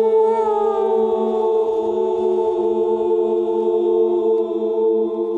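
Background music of long held chords, with one high note gliding slowly downward about a second in.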